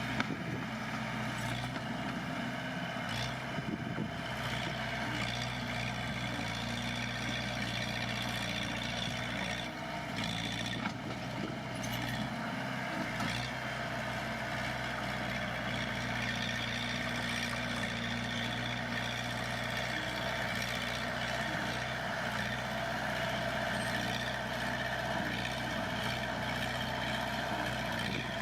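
Heavy earthmoving machine's diesel engine running steadily, with a few short knocks from the machine now and then.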